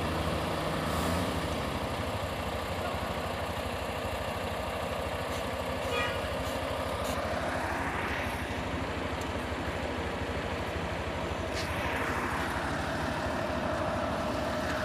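Heavy truck diesel engine running steadily on the hill, with traffic going by: two vehicles pass, one near the middle and one about three-quarters of the way through.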